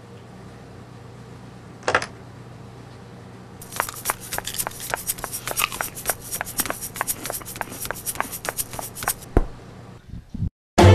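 A brief swish about two seconds in, then a long run of sharp, irregular clicks or taps, roughly four to five a second, over a low steady hum. The clicks stop about nine seconds in with a single low thud.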